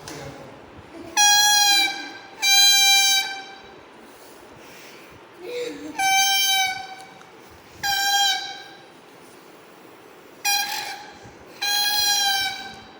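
Coconut-leaf whistles blown in six short horn-like blasts, coming in three pairs. Each blast holds one steady note for under a second and dips slightly in pitch as it ends.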